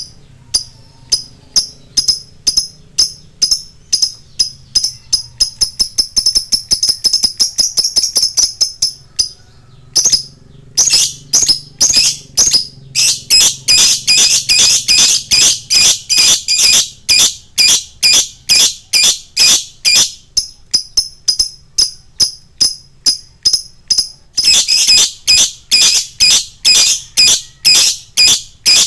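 Lovebird chattering in sharp, high chirps repeated several times a second, thickening into long, dense runs of rapid trilling.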